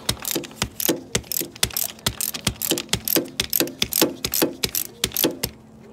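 Ratchet wrench with a 5/8 socket clicking in quick back-and-forth strokes as it unscrews an oil-sump drain plug that has already broken loose. The clicking stops shortly before the end.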